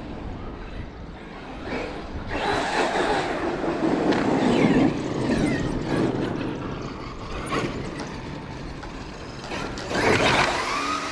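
Traxxas X-Maxx RC monster truck running on pavement, its brushless electric motor whining over tyre noise. It surges about two seconds in, eases off, and picks up again near the end.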